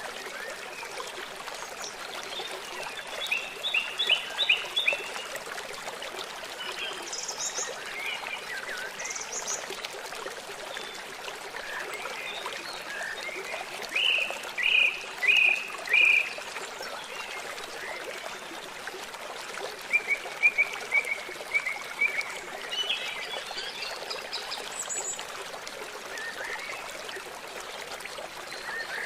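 Songbirds calling in short series of quick repeated chirps, the loudest a run of four clear notes about halfway through, over the steady rush of a flowing stream.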